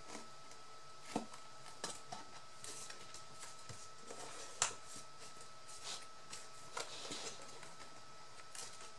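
Light handling of paper and cardboard: scattered soft rustles and small clicks and taps, with one sharper tap about halfway through.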